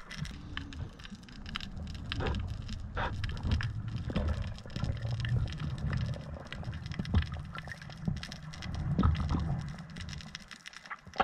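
Underwater sound picked up by a diving camera: a low, uneven rumble of water moving past the housing with scattered crackling clicks.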